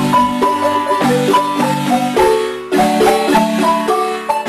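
Background marimba music: a melody of struck notes over lower chords, the held notes played as quick rolls.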